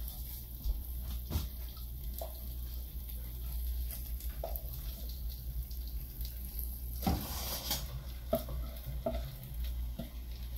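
Seasoned raw ground meat being dropped by hand into a pot of hot sautéing sauce, sizzling and frying, with a few soft knocks; the sizzle is noisier for a moment about seven seconds in. A steady low hum runs underneath.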